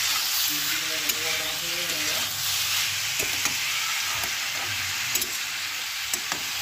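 Mushrooms, peas, capsicum and green chillies sizzling in oil in a metal kadhai as they are stirred, a steady hiss broken by scattered sharp clicks and scrapes of the spatula against the pan.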